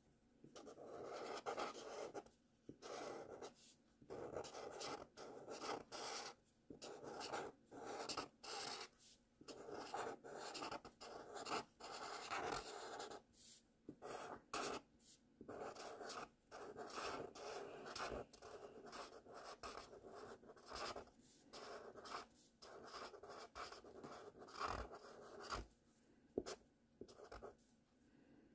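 Felt-tip marker writing cursive letters on paper: the tip scratches along in stroke after stroke, with brief gaps between strokes.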